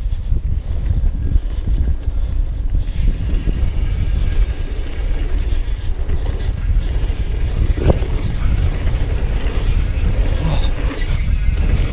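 Downhill mountain bike rolling fast over a dirt trail: a steady low rumble of tyres and wind buffeting the camera's microphone, with a sharp knock about eight seconds in.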